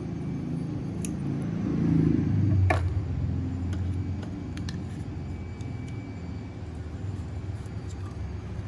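Steady low rumble, swelling about two seconds in, with one sharp snip just under three seconds in as side cutters trim the tag end of braided fishing line at a hook knot.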